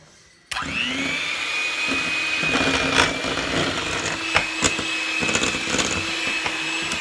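Electric hand mixer switched on about half a second in and running steadily on low speed, a constant motor whine as its beaters work butter into powdered sugar in a stainless steel bowl, with a few sharp clicks.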